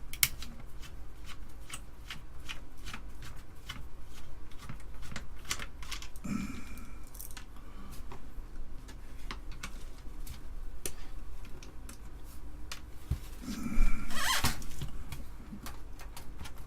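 Hands working on a computer's floppy drive mount with a screwdriver: irregular small clicks and taps of metal screws and plastic, with two louder scrapes, one about six seconds in and one near the end.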